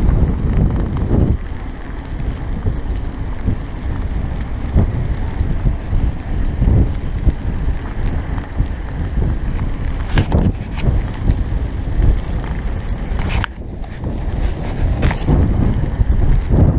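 Wind buffeting an action camera's microphone during a bicycle ride through fresh snow, a steady low rumble mixed with the noise of the ride. A few short knocks or rattles stand out, the sharpest about three quarters of the way through.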